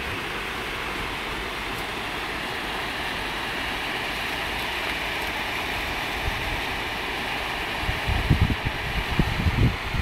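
Steady outdoor rushing noise with no clear single source, and from about eight seconds in irregular low thumps on the microphone.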